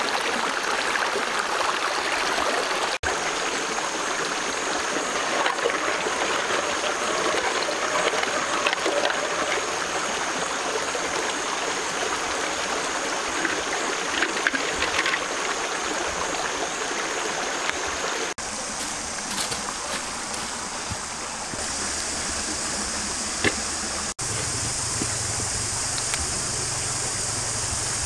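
Shallow stream running and trickling over rocks, with water sloshing around hands in a clay pot. Later the water sound gives way to a steady high insect drone.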